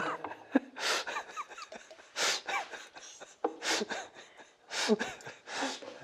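A man laughing in short, breathy bursts with gasps between them, about five times.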